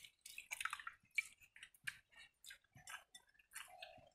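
Fingers working watery pakhala rice in a steel pot: faint, irregular wet squishes and drips with light clicks, mixed with chewing.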